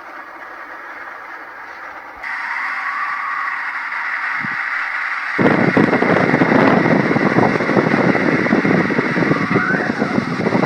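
Strong wind blowing as a steady rushing noise. It jumps abruptly louder about two seconds in, and again about halfway through, when a deep low rumble joins it.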